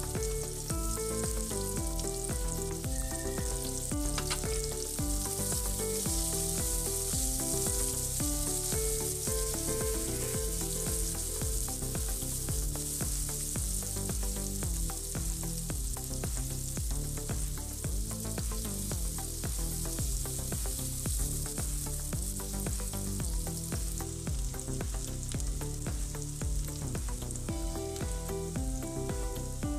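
Sliced onions sizzling steadily in hot oil in an aluminium kadhai, with a spatula stirring through them at times. Soft background music with changing notes plays underneath.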